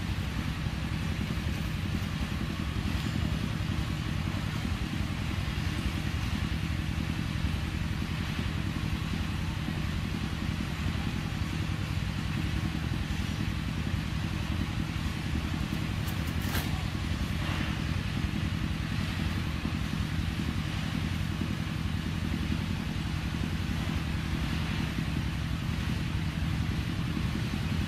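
Steady low mechanical hum, like a motor running, under an even hiss, with one sharp click about sixteen seconds in.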